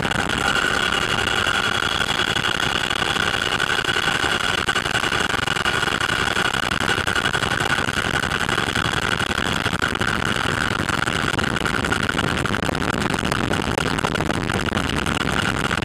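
Steady engine and airflow noise heard from inside an aircraft cabin, with a high whine held at one pitch throughout.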